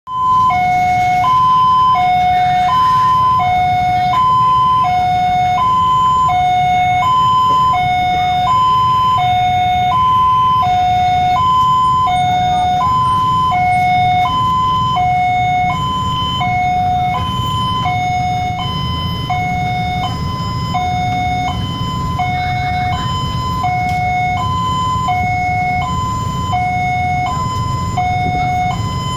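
Railway level-crossing warning alarm sounding with the barriers down: a loud electronic two-tone signal alternating high and low, about one pair a second, warning that a train is approaching.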